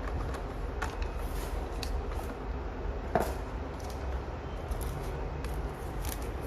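Handling sounds of a phone being unboxed: a few light clicks and knocks, the loudest about three seconds in, over a steady low rumble.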